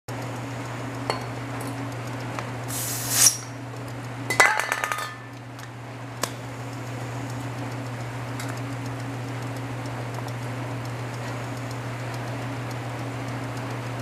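1933 Frigidaire condensing unit's compressor motor running with a steady low hum under the hiss of rain, during refrigerant charging. A short rasping burst comes about three seconds in, and a brief bout of glassy, metallic clinking about four and a half seconds in.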